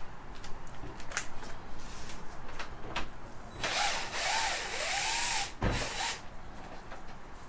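Cordless drill-driver backing out fairing screws: scattered clicks, then about two seconds of motor whir that rises and falls in pitch, ending in a heavy thump.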